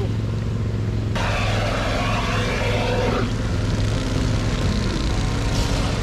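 Engine-driven water pump running steadily with a constant low hum while dewatering the riverbed. About a second in, a rushing, hissing noise joins it for roughly two seconds.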